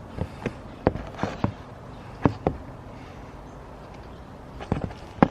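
Scattered sharp clicks and light knocks of hands handling gear, a dozen or so at no steady rhythm, the loudest near the end.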